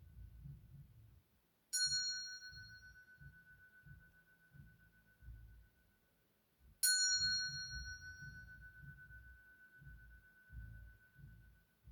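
Koshi chime struck twice, about five seconds apart; each strike rings on in one clear, steady tone that fades slowly, with bright higher overtones dying away within a second or two. A low, irregular rumble runs underneath.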